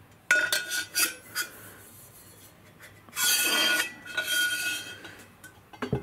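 Copper fire tube being slid through a copper pipe boiler shell, metal on metal: a few light knocks in the first second or so, then two longer scrapes past halfway that leave the copper pipe ringing.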